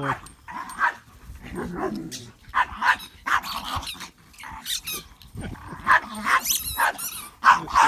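A dog barking and growling in short repeated bursts, about every half second, with some higher-pitched yelps in the second half.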